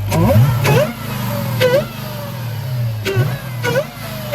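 Dodge Charger Hellcat's supercharged 6.2-litre HEMI V8 blipped in several quick revs, each rising and dropping back to idle.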